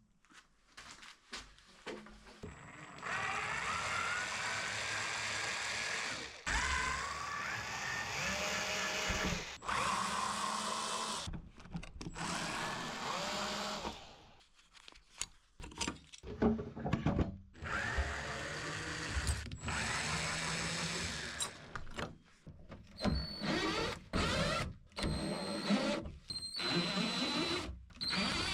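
Power drill running in repeated bursts of a few seconds, its motor whine rising in pitch as it spins up each time.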